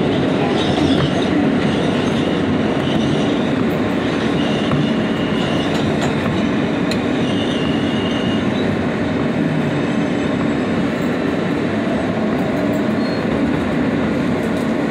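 New York City Subway G train heard from inside the car as it runs into a station and slows to a stop: a steady rumble of wheels on rail, with faint high wheel squeals coming and going in the first half.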